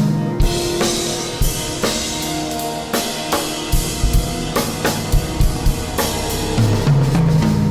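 Improvised drum-kit playing: bass drum, snare and cymbals struck in a loose, irregular pattern over a cymbal wash, with held low pitched notes near the start and again near the end.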